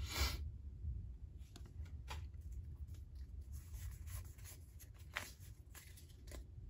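Foil Pokémon booster-pack wrapper being torn open and the cards handled: a short loud rustle right at the start, then scattered soft crinkles and clicks, over a low steady hum.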